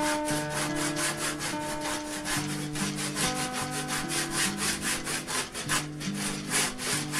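An old handsaw cutting through a wooden louvre door in quick, even back-and-forth strokes. Background music with held notes plays underneath.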